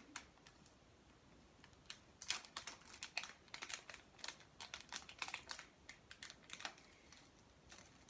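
Small plastic packet crinkling and crackling as it is handled and opened, in a run of quick, irregular crackles that starts about two seconds in and thins out near the end.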